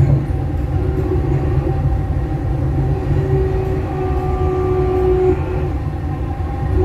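Dubai Metro driverless train running on elevated track, heard from inside the cabin: a steady low rumble of wheels on rail, with a steady humming tone that comes and goes every second or so.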